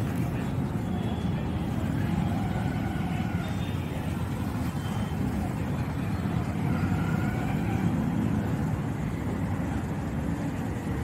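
Steady rumble of road traffic, with a few faint, short high tones over it.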